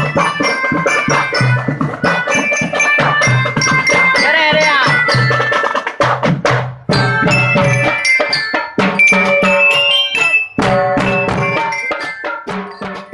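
Music with a steady drum beat and tuned percussion over it, with a few gliding melodic notes.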